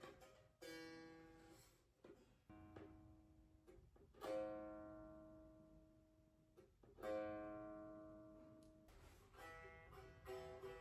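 A plucked string instrument played slowly: single notes struck about a second, two and a half seconds and four seconds in, each ringing out and dying away over a couple of seconds. A quicker run of notes follows near the end.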